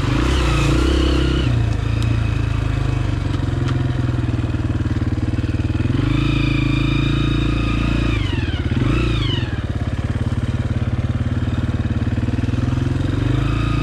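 Honda CRF230F dirt bike's single-cylinder four-stroke engine running under way. The revs hold steady, then drop and pick up again about two-thirds of the way through.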